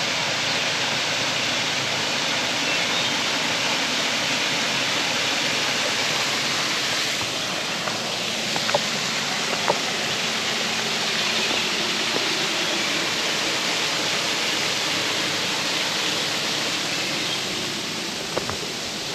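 Water pouring over a small dam spillway, a steady rushing of falling water.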